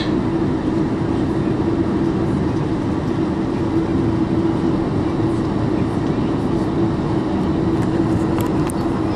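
Steady cabin noise of a Boeing 747-400 taxiing, its engines at low power, with a constant low hum over an even rush of air.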